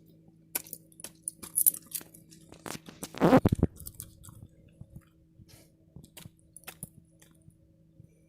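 A dog cracking a peanut shell in its mouth and chewing. There is a run of crunches and clicks, loudest a little past three seconds in, then thinning out.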